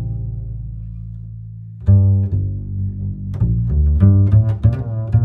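Background music carried by low bass notes: one long held note, then from about two seconds in a run of short, separately struck low notes.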